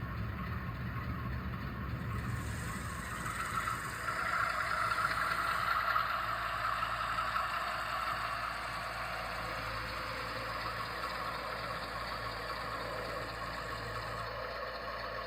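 HO-scale Athearn GP50 model locomotive running on the track, its DCC sound decoder playing diesel engine sound through a small speaker. The engine sound swells about three to six seconds in, then settles to a steady run.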